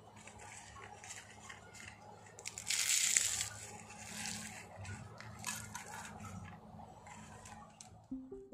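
Crisp, flaky layered pastry being crushed and crumbled by hand, crackling irregularly. The loudest crunch comes about three seconds in, with smaller crackles after it.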